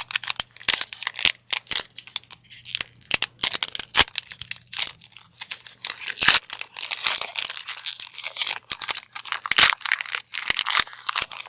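Foil wrapper of a Magic: The Gathering collector booster pack being torn open and crinkled, a dense run of irregular crackles and sharp snaps.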